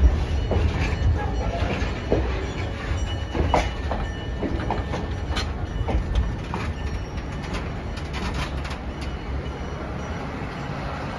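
Vintage passenger railcar rolling slowly past on the track, its wheels clacking and knocking over the rail joints over a low rumble. The knocks thin out and the sound grows quieter toward the end.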